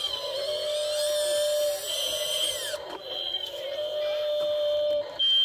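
Small electric motors and gearboxes of a radio-controlled model excavator whining as the boom, arm and bucket move to dig, with a louder grinding whine over the first three seconds that changes pitch. A short, loud, high tone sounds near the end.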